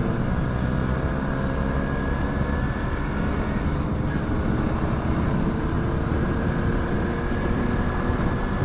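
Motorcycle engine running steadily at cruising speed, its pitch drifting only slightly, under a constant rush of wind noise.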